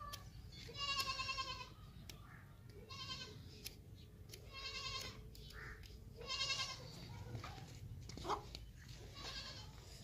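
Goats bleating: about five quavering bleats, one every second or two.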